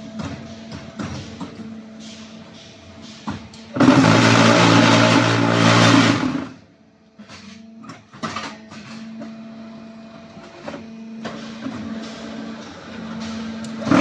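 QT4-18 concrete block machine at work: a steady hydraulic hum with small clicks and knocks. About four seconds in, the mould vibrators buzz loudly for nearly three seconds, compacting the concrete. Another loud buzz starts at the very end.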